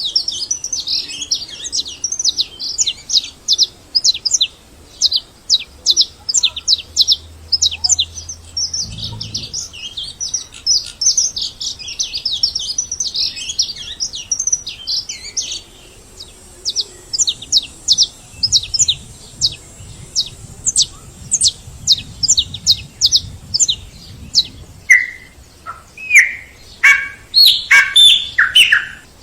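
Birds chirping, many short high notes in fast succession. Near the end, louder, lower notes that slide downward join in.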